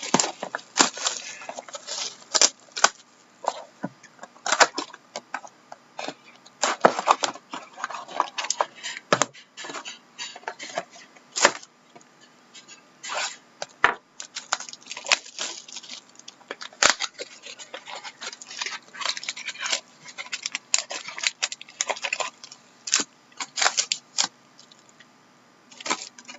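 Trading-card packaging being handled and torn open: irregular crinkling, tearing and tapping of wrapper and cardboard, with many short sharp clicks.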